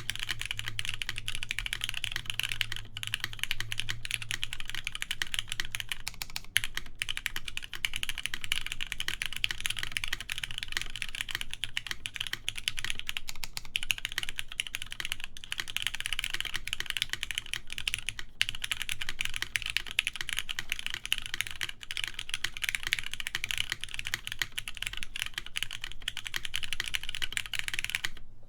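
Continuous typing on a TGR Jane v2 ME mechanical keyboard with lubed Cherry MX Black linear switches, a full polycarbonate plate and Cherry keycaps: a dense, even stream of key strokes that stops suddenly near the end.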